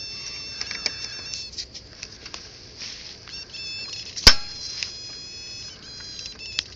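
Small metal clicks and scrapes of a hand tool working at a set screw on a scooter's chain-drive sprocket shaft, with one sharp click a little past four seconds in. A high steady whine comes and goes behind it.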